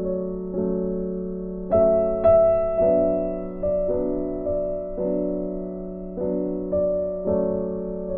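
Background piano music: soft chords struck about once a second, each fading before the next.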